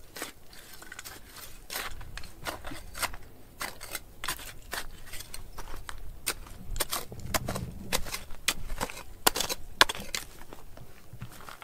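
Hand tool digging and scraping in stony ground: an irregular run of scrapes and clicks, a few a second, with two sharper knocks near the end.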